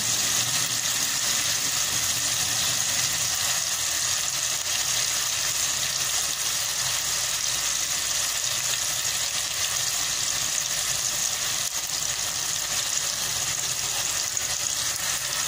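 Crushed onions frying in hot oil in an aluminium pot: a steady, dense sizzle.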